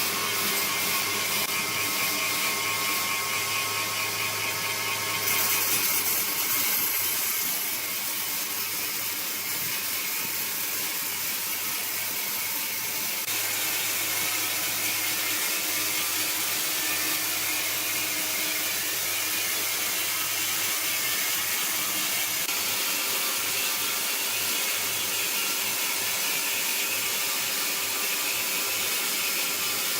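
Sawmill machinery running steadily: a high hiss over a low hum with a few steady tones, changing character about five seconds in and again about thirteen seconds in.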